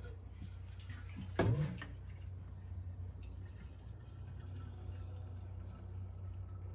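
Fuel pouring from a red metal gas can into an old McCulloch chainsaw's fuel tank, a faint steady trickle. A brief bump about a second and a half in as the can is handled.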